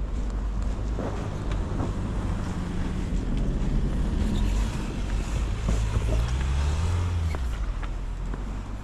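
A motor vehicle's engine running close by, a low rumble whose pitch climbs for a couple of seconds in the second half and then fades away.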